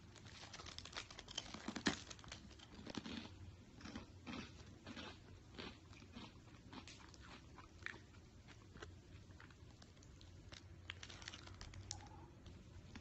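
Faint, irregular scratching and rustling with scattered small clicks: a Ragdoll kitten pawing and clawing at a carpeted cat tree as it climbs into it.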